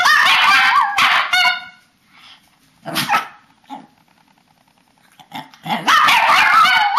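Small dogs 'talking': a shih tzu's long vocal call with wavering, bending pitch, a short bark about three seconds in, then another long wavering call from about five and a half seconds.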